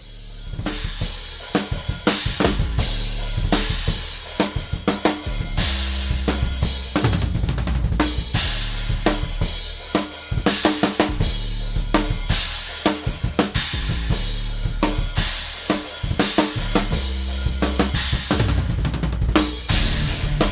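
Intro music with a driving rock drum beat: kick, snare and cymbals over a bass line.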